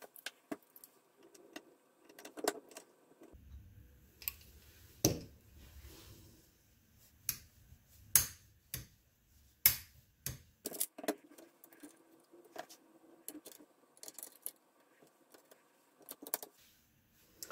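Steel action parts of a Winchester 1886 lever-action rifle clicking and clinking as they are handled and fitted into the receiver during reassembly. Scattered sharp clicks, a few of them louder.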